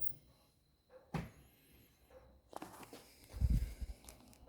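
Scattered knocks and handling noises, with a cluster of low thuds about three and a half seconds in.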